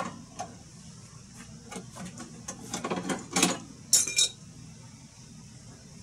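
Hand tools clinking and knocking against metal pipework and panels inside an air conditioner's outdoor unit: a sharp click at the start, scattered taps, then a cluster of louder clanks with a brief metallic ring about three to four seconds in.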